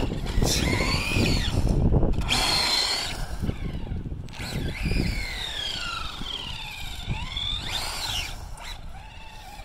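Traxxas Slash 4x4 RC truck's electric motor and drivetrain whining, rising and falling in pitch again and again as the truck speeds up and slows on the asphalt.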